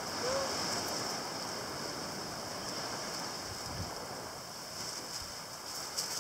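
Steady wash of ocean surf and wind on an open beach, with a constant high hiss over it.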